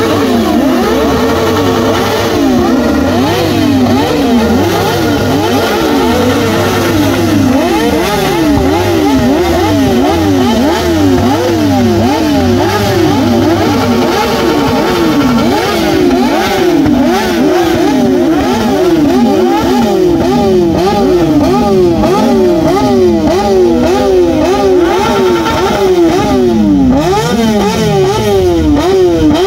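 Sport motorcycle engines revved over and over, several overlapping, their pitch climbing and dropping back about once a second, with a steady low engine drone under the first half.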